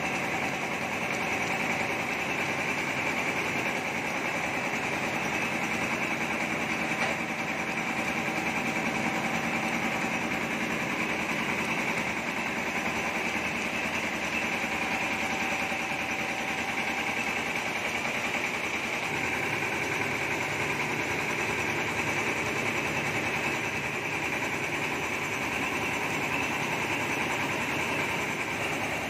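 Small rice mill running steadily, its engine and milling machinery making an even mechanical drone with a constant hiss as milled rice pours through the chutes.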